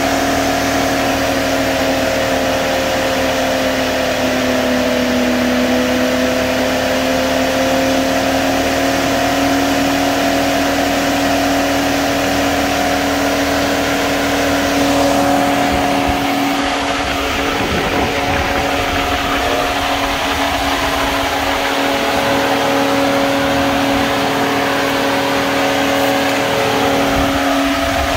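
Volvo XC90 electric radiator cooling fan running at high PWM-set speed, around 82 to 89 percent: a loud, steady whirring hum with a strong blade tone. Its pitch sags slightly a few seconds in, then climbs as the speed is turned up and holds steady.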